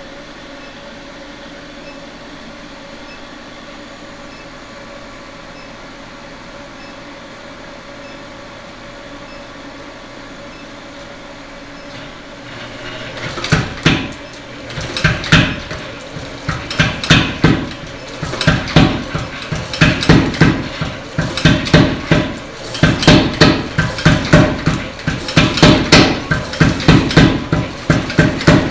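A steady hum for about the first twelve seconds, then a blacksmith's hammer starts striking hot steel on an anvil in a fast, steady run of blows, a few a second, drawing the bar out into a taper.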